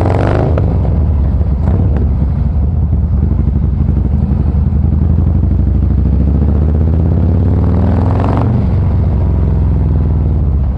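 Harley-Davidson Fat Boy Special's V-twin running through a SuperTrapp variable exhaust while riding, loud. The revs climb near the start and again about eight seconds in, then drop back.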